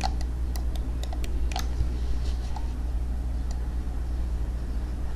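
A handful of sharp computer clicks in the first second and a half, with a few fainter ticks later, over a steady low hum.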